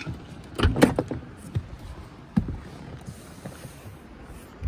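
Handling knocks and clicks as a phone is unplugged and carried out of a car: a cluster of sharp knocks about a second in, then single knocks at about one and a half and two and a half seconds.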